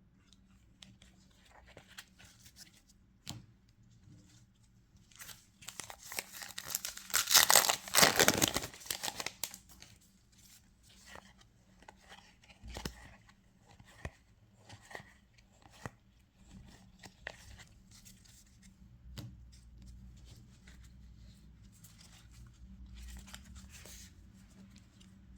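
A booster pack's wrapper being torn open: a loud, dense crackling rip lasting about four seconds, starting about five seconds in, followed by scattered rustles and light clicks.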